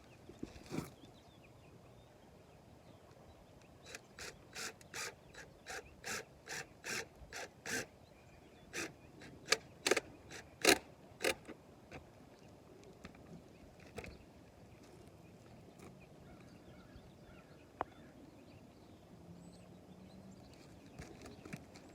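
A run of sharp clicks or knocks at about two to three a second for several seconds, then a few louder ones spaced further apart.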